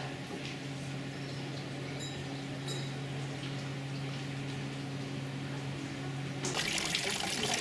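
Steady low hum with faint ticks and a couple of short high chirps. About six and a half seconds in it gives way suddenly to a louder, even hiss of water from a fountain spout splashing into its basin.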